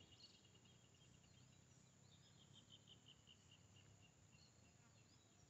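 Near silence of open countryside, with a faint run of short, high, evenly spaced chirps from a distant small animal starting about two seconds in and lasting under two seconds.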